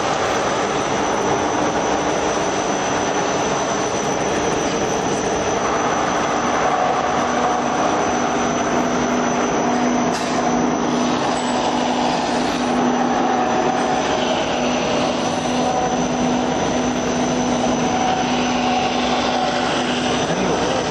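Automatic wood sanding machine running, its motors driving rotating disk sanders and sanding rollers: a steady, loud machine whirr with a constant hum and a constant high whine.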